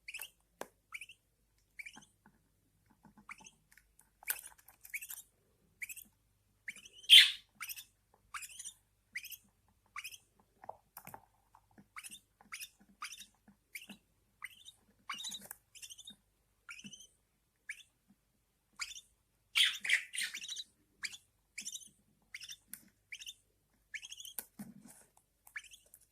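Newly hatched budgerigar chicks cheeping in the nest: a steady run of short, thin, downward-sliding peeps, about one or two a second, with a louder, harsher chirping burst about seven seconds in and again about twenty seconds in.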